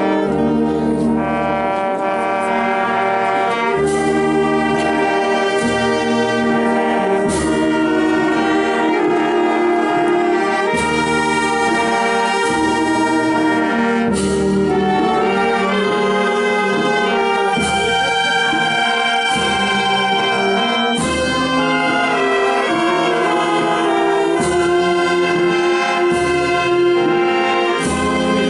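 A wind band of clarinets, saxophones, trombones and larger brass playing a slow march in held chords. A strong low beat falls about every three and a half seconds.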